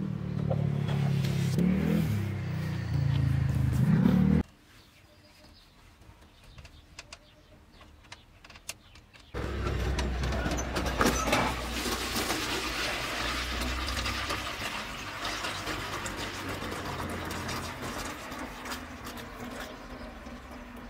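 A car engine running, its pitch rising and falling as it revs, cut off abruptly a few seconds in. A few seconds of near quiet with faint clicks follow, then a steady low rumble and hiss that fades slowly.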